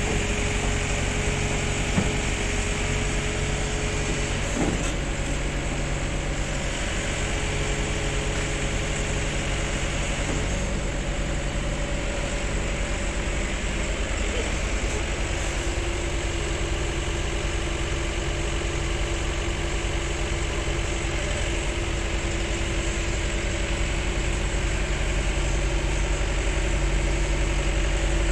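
Heavy diesel machinery engine running steadily at idle, with a held whine that drops a little in pitch about eleven seconds in. Two light knocks come about two and five seconds in.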